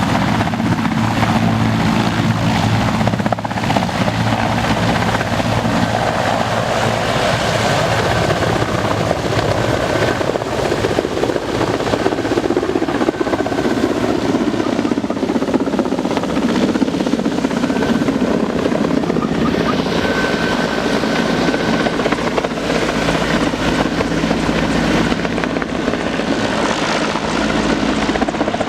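Military helicopter's rotor and turbine engines running steadily and loudly, close by.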